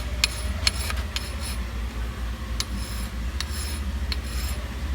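Flat hand file rasping across the worn metal helix ramp of a Polaris Ranger 500 driven clutch, in quick strokes about two or three a second with a short pause near the middle. The file is used with light pressure to take the grooves out of the ramp. A steady low hum runs underneath.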